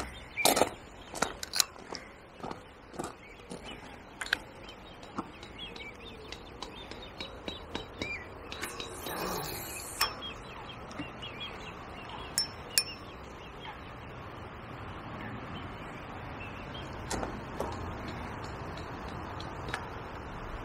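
Footsteps crunching on gravel and the clicks of tackle being handled, then a rod being cast about nine seconds in, with a brief rush of line running off a fixed-spool reel, followed by a few more handling clicks.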